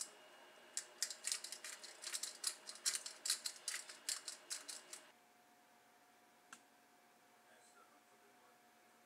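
Hand-twisted pepper grinder cracking black peppercorns: a run of rapid, crunchy clicks, about four to five a second, that stops about five seconds in.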